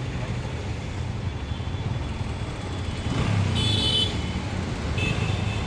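A vehicle engine running steadily. A short high-pitched horn toot sounds about three and a half seconds in, and a fainter one near the end.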